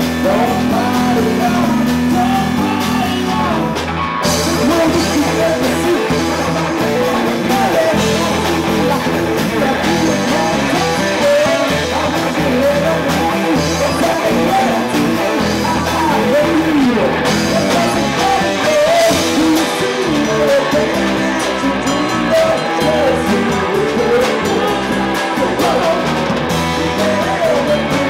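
Live rock band playing: a man sings into a microphone over electric guitar, bass guitar and a drum kit.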